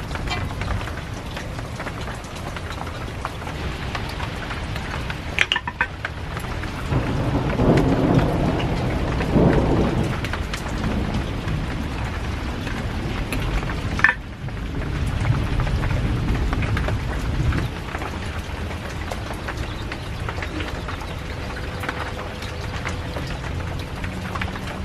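Steady rain with low rolls of thunder, the loudest about seven to ten seconds in, and a fainter one near the middle. A couple of sharp clinks sound over it.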